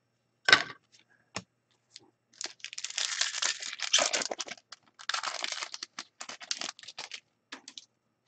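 A sports card pack's wrapper being torn open and crinkled by hand, a dense crackling run of a few seconds. A single sharp knock comes about half a second in.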